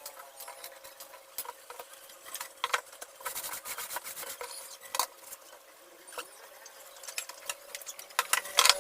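Wooden parts rubbing and scraping against each other, with scattered sharp clicks and knocks as pieces of a sliding jig and its rail are handled and fitted together; the loudest knocks come about five seconds in and near the end.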